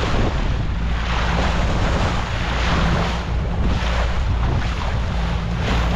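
Small open fishing boat under way: its engine runs steadily under heavy wind buffeting on the microphone, with water rushing and splashing along the hull in surges.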